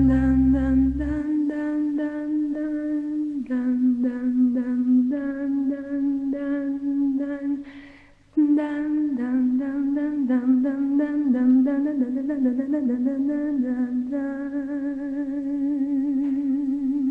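An unaccompanied wordless voice humming a slow melody of long held notes with vibrato. It fades out about eight seconds in and comes back a moment later.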